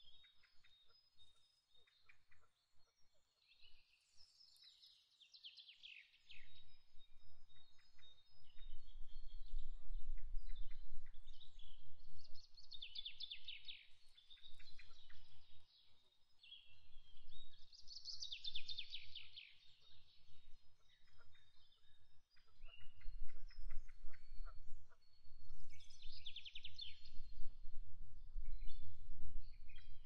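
A small songbird singing a fast trill that falls from high to lower pitch, four times, with faint chirps in between. A low rumble comes and goes from about six seconds in.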